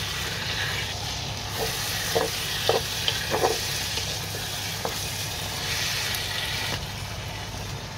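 Chicken pieces in a thick, nearly dry masala sizzling in a pot while a spatula stirs them. A few short scrapes and knocks of the spatula against the pot come about two to five seconds in.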